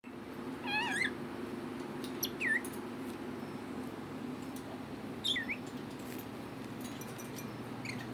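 Red lory giving short squeaky whistled calls: a wavering warble about a second in, then two quick swooping squeaks that dip and hook back up, and a faint one near the end.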